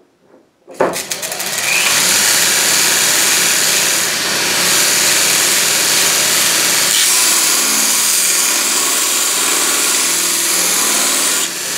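Electric motor of a homemade 2-inch belt grinder starting about a second in and running the belt up to speed, then a steel bar being ground against the running belt in a steady, loud rasp. The noise eases briefly near the end.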